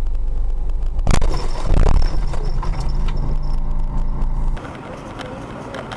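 Dashcam recording of a road collision: a loud low road rumble, a sharp bang about a second in and a second loud crash just after, then a steady droning tone that cuts off suddenly.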